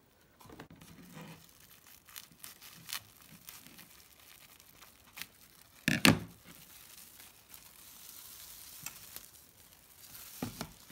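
Plastic cling film crinkling and rustling as it is handled and smoothed flat over a paper design on a board, with a sharp knock about six seconds in.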